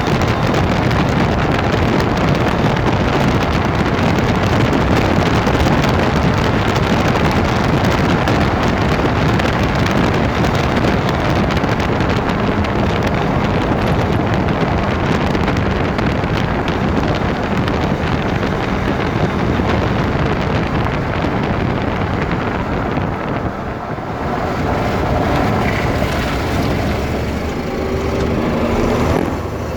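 Land Rover Freelander 2 driving: a loud, steady noise of road and drivetrain, with the grinding that is still there after the rear differential was replaced. The noise dips briefly about three-quarters of the way through, and faint whining tones come in near the end.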